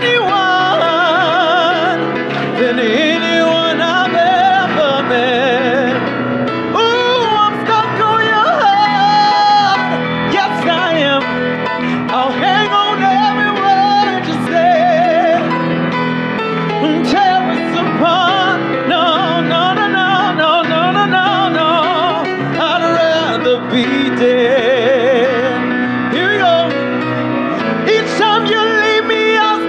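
Male voice belting and riffing through vocal runs and held notes with wide vibrato, over live piano accompaniment.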